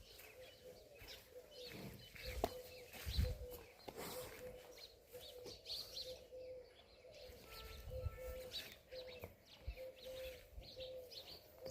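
Faint birdsong: a dove's low cooing repeated steadily about twice a second, under short high chirps from other birds. A few low knocks are heard.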